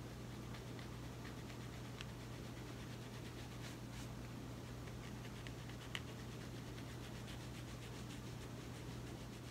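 Fine-tooth plastic comb scratching through short, tightly coiled hair against the scalp, close to the microphone, working dandruff loose: a run of quick, dry scratching strokes over a steady low hum.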